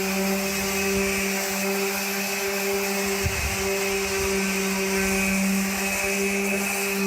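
Electric sander running steadily on bare steel with 150-grit paper: an even motor hum under the hiss of the paper. A brief low bump about three seconds in.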